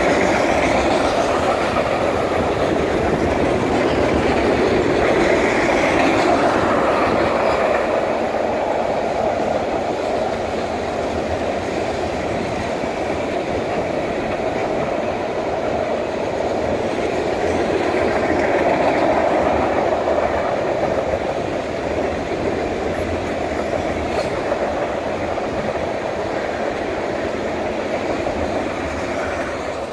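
Empty ethanol tank cars of a freight train rolling past, their steel wheels running steadily on the rails.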